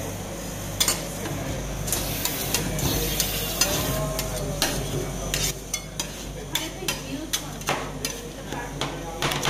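Flat steel spatulas scraping and chopping ice cream base with blueberry sauce on a stainless steel cold plate for rolled ice cream. The first half is mostly scraping and smearing. From about halfway in come quick sharp taps of the blades on the metal, three or four a second.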